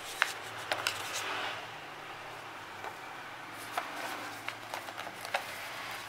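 Paper and tissue packaging being handled: a paper card moved aside and the tissue wrap over a boxed keyboard lifted, giving a series of sharp crinkles and taps, clustered in the first second and again about four to five and a half seconds in.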